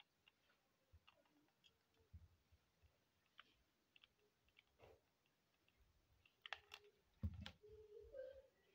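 Near silence, with faint scattered clicks of a hot glue gun being handled over a jute mat. A few louder knocks come near the end, the loudest as the glue gun is set back down.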